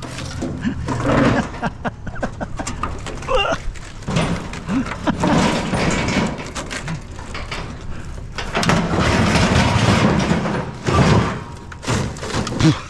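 Irregular knocks, thuds and rattles of things being handled and moved about, with a longer stretch of scraping, rustling noise a little past the middle.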